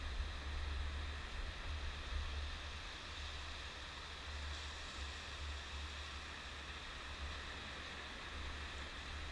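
Steady wash of surf breaking on a sandy beach, with wind buffeting the microphone as an unsteady low rumble.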